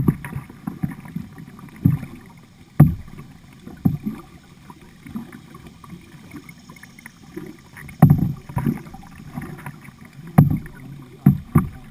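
Kayak paddling on a fast, flood-swollen river: paddle strokes in the water with irregular sharp thumps, the loudest about three seconds in, about eight seconds in and just past ten seconds, over a steady rush of water.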